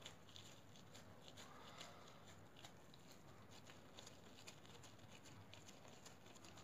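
Faint, irregular soft ticks and rustles of plastic-gloved hands pressing and shaping a ball of kibbeh dough, over near silence.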